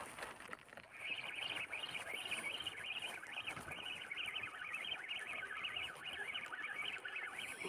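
A continuous chorus of high, rapidly chirping animal calls that starts about a second in.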